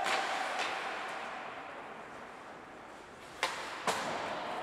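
Sharp knocks of hockey sticks and puck striking during an ice hockey game: two fainter ones near the start and two sharper ones about half a second apart near the end, over a steady hiss.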